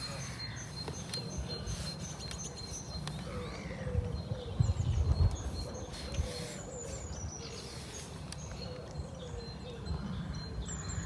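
Birds calling: a low call repeated over and over, with high thin chirps above it, over a low rumble of wind on the microphone that gusts loudest about four to five seconds in.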